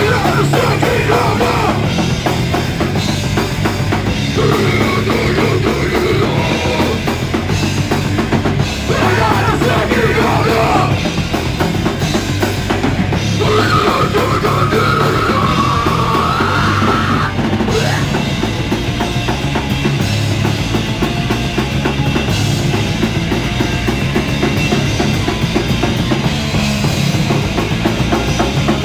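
Live band playing loud, heavy rock, with a pounding drum kit and bass drum under the full band, recorded on a mobile phone.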